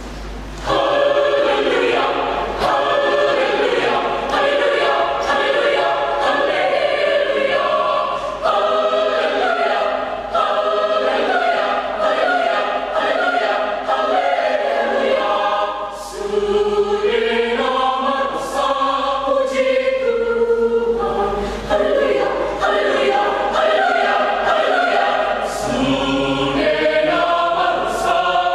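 Church choir singing in parts, coming in loudly just under a second in and carrying on through several phrases with brief breaks between them.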